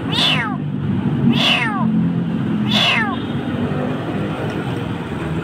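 Kitten crying in distress: three shrill meows about a second and a half apart in the first three seconds, each falling in pitch, from a frightened kitten that resists being handled. A steady low hum runs underneath.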